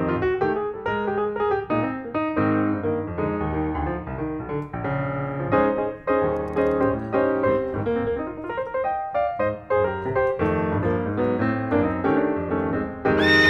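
Background piano music, a run of separate notes and chords. A horse whinny cuts in just before the end.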